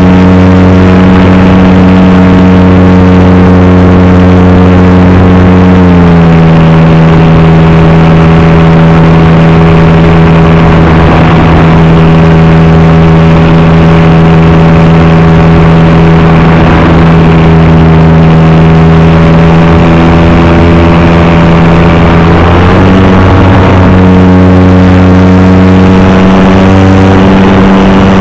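Model Cessna's motor and propeller running loud and steady, close to the onboard camera. The pitch drops a little about six seconds in as the throttle eases back, and it rises again near the end.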